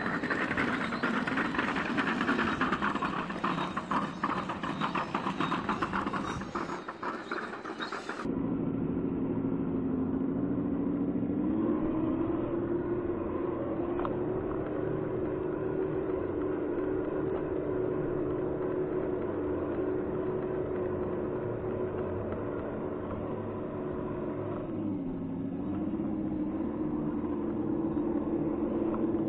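Crackly, clattering noise, then after a sudden cut a steady motor drone that steps up in pitch, holds, and dips briefly near the end.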